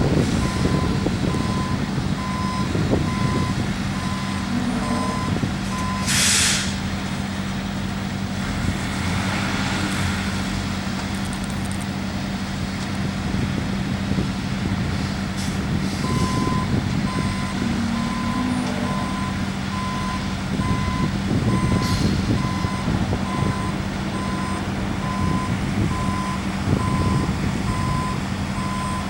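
A heavy truck's reversing alarm beeping steadily about once a second over a continuous diesel engine drone; the beeping stops about six seconds in and starts again after about sixteen seconds. A short, loud burst of air hiss comes about six seconds in, with a smaller one near the end.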